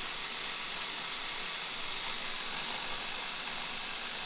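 Food processor running steadily with an even whir as it grinds toasted sesame seeds and olive oil into tahini.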